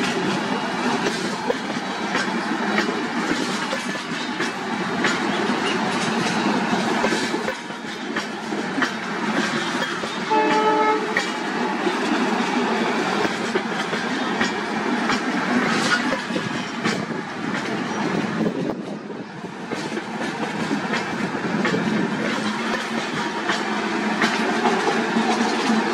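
LHB passenger coaches rolling past on the track: a steady rumble with wheels clicking over the rail joints throughout. A brief pitched note sounds about ten seconds in.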